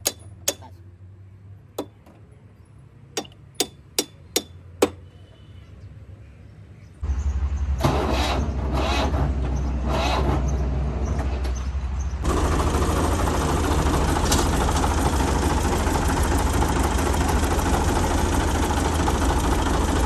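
A run of sharp taps over the first five seconds, then the grass cutting machine's engine starts about seven seconds in and runs steadily, getting louder about twelve seconds in.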